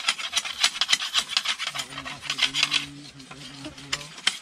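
A machete blade scraping and shaving a bamboo stick in quick repeated strokes, thickest in the first three seconds.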